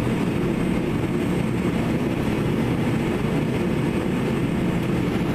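Scale radio-controlled hydraulic excavator working, a steady mechanical rumble that runs on without a break while its arm swings over to load a dump truck.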